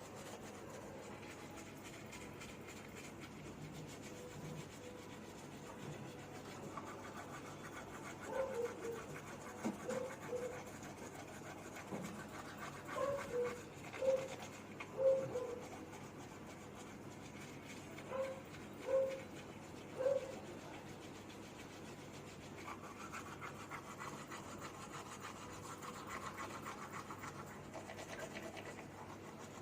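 A person brushing their teeth, the brush scrubbing steadily, with a run of short throaty grunts and hawking sounds in the middle as they clear the throat.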